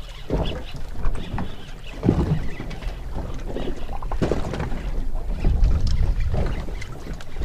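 Wind buffeting the microphone and water washing against a small boat's hull at sea, with irregular low surges about every two seconds.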